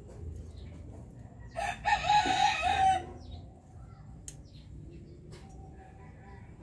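A rooster crowing once, a loud call about a second and a half long, starting between one and a half and two seconds in.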